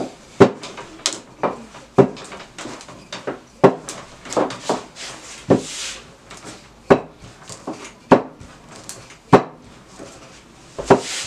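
Wooden rolling pin rolling out thin pizza dough on a kitchen table: a run of sharp wooden knocks at irregular intervals as the pin is pushed back and forth, with a soft rubbing of the pin over the dough between them.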